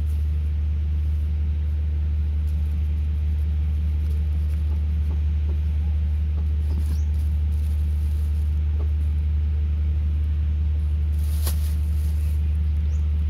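A steady low mechanical drone, like an engine running, holding an even level throughout, with one brief sharp tick about eleven seconds in.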